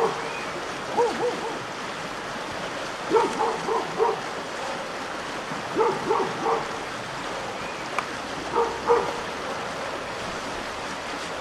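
A dog barking in four short bouts of a few barks each, over the steady rush of creek rapids.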